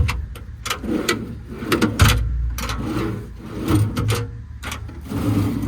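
Steel toolbox drawers on a truck service bed being pulled open and pushed shut, sliding with a run of clicks and knocks and a few dull thuds.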